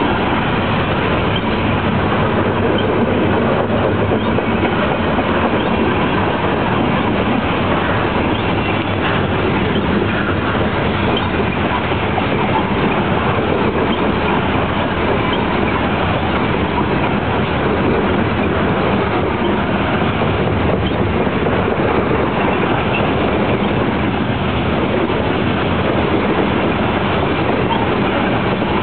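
Norfolk Southern Top Gon coal gondola cars rolling past close by: a loud, steady running noise of steel wheels on rail that holds unchanged throughout.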